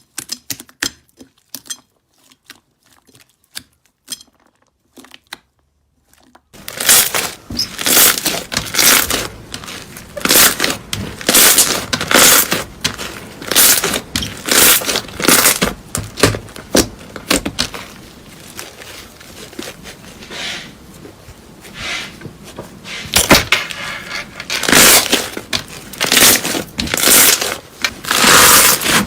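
Hands squeezing and pressing slime: a few separate sticky clicks at first, then, from about six seconds in, a dense continuous run of clicks and pops as the slime is worked.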